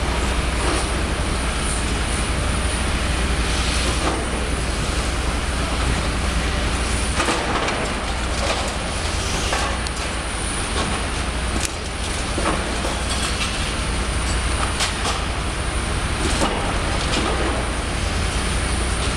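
Hydraulic excavator running steadily while its arm tears at brick masonry, with irregular crunches, knocks and clatter of brick and rubble breaking and falling.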